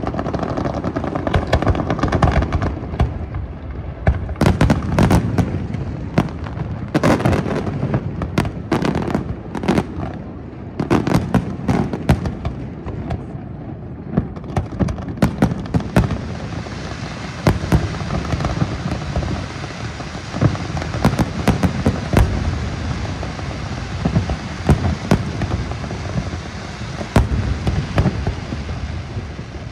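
Aerial fireworks bursting: many sharp bangs at irregular intervals, some in quick clusters, over a continuous rumble. A steady crackling hiss joins from about halfway through.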